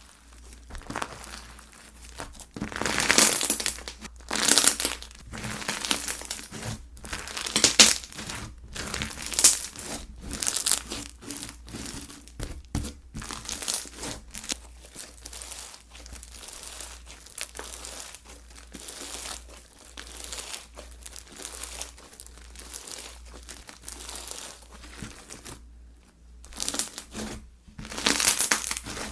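Slime being squeezed and worked by hand. It makes a dense run of small clicks, pops and squishes, with louder surges lasting a second or two every so often.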